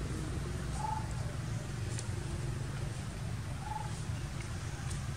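A bird's short call, a single note repeated twice about three seconds apart at the same pitch, over a steady low rumble.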